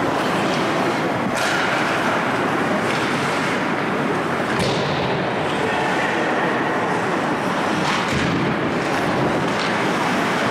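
Ice hockey scrimmage: a continuous hiss of skates on the ice, with about five sharp clacks of sticks and puck that ring on in the rink.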